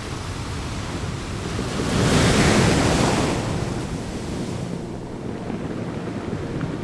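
Stormy ocean surf: a steady rush of waves, with one wave breaking loudly about two seconds in and then washing out, and wind buffeting the microphone.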